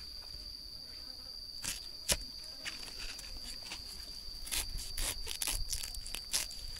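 An insect's steady, high-pitched drone runs throughout. Over it come several sharp clicks and snaps, a couple early on and a quicker cluster in the second half.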